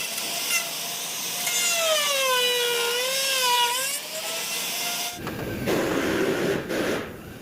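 Power tool motor whining at high speed, its pitch dipping for a couple of seconds as if under load and then recovering. It cuts off about five seconds in, and a rougher, noisier sound follows.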